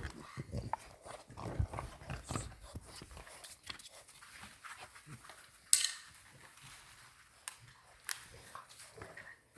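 English bulldog puppies working at their chew bones: scattered small knocks, clicks and scuffles of gnawing and handling. The sharpest click comes a little before six seconds in.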